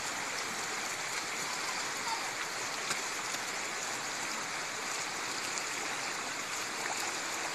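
Shallow mountain river rushing over stones: a steady, even noise of flowing water.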